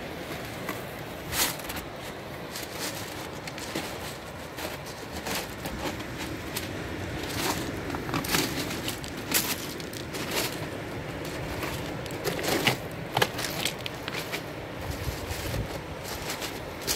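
Footsteps crunching on a pebble beach, irregular clicks and scrunches of stones underfoot, over a steady hiss of surf and wind.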